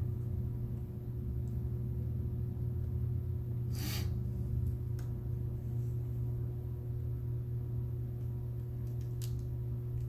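Steady low electrical hum, with a few small plastic clicks as ribbon-cable connectors are pressed onto a laptop motherboard: one sharp click about four seconds in and lighter ones around five and nine seconds.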